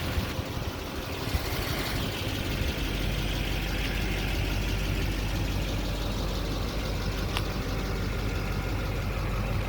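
Chevrolet Silverado 3500HD's Duramax V8 turbodiesel idling steadily, with a single sharp click about seven seconds in.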